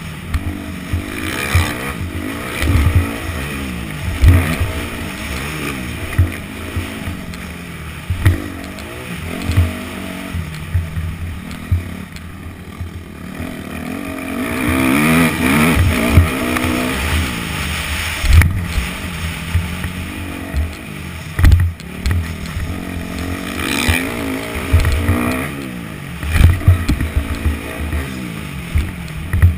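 Yamaha YZ250F four-stroke single-cylinder dirt bike engine revving up and falling back again and again as the rider works the throttle around the track, with wind buffeting the helmet-mounted microphone and short low thumps over the bumps.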